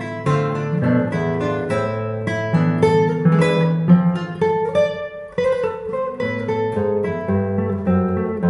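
Solo nylon-string classical guitar played fingerstyle: plucked melody notes over a moving bass line, with a brief break in the sound about five seconds in.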